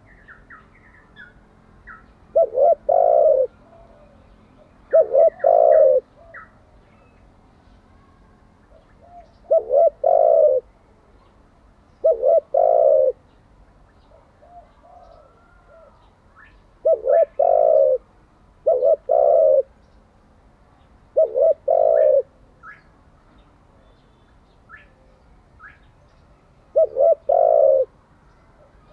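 Spotted dove cooing: about eight loud, low phrases a few seconds apart, each a couple of quick notes running into a longer coo. Faint, short high chirps of small birds sound between the phrases.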